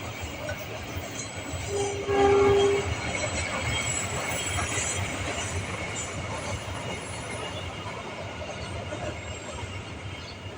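Train horn sounding one blast of about a second, about two seconds in, over the steady rumble of a passing train, with thin high squealing tones from the wheels on the rails.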